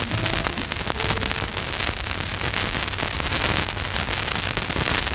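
Surface noise of a shellac 78 rpm record after the song has ended: steady hiss thick with crackles and pops, with a few faint last notes in the first second.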